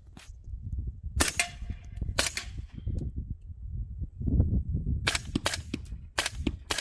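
Suppressed AR-15 in 300 Blackout firing subsonic rounds through a Griffin Recce 7 suppressor: two shots about a second apart, then after a pause a quicker string of shots near the end.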